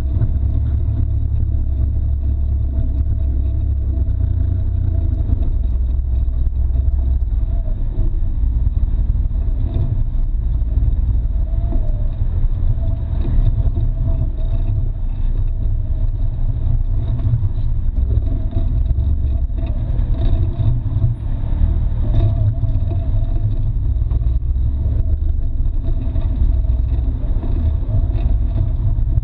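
Can-Am Maverick X3 side-by-side, with its turbocharged three-cylinder engine, running steadily as it crawls over a rocky trail, under a heavy low rumble with a few brief knocks.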